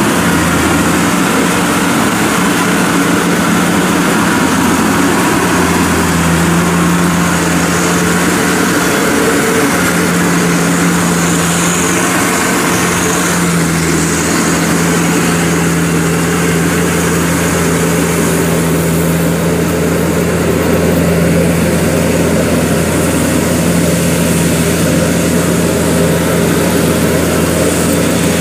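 Zoomlion EH100E rice combine harvester running steadily while cutting and threshing rice, its engine and threshing machinery making a continuous drone with a low, even hum.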